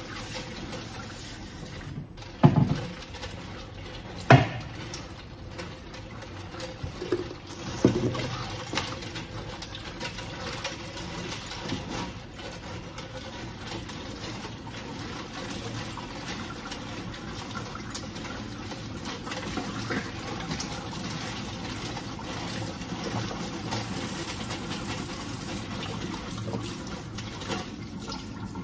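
Kitchen tap running into a steel sink while food is washed by hand in a plastic basin, a steady rush of water with splashing. A few loud knocks come in the first eight seconds or so.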